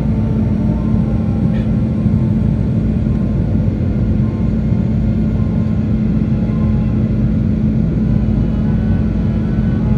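Steady cabin noise of a jet airliner in flight, heard inside the cabin beside the wing: the turbofan engines' even drone with a steady low hum.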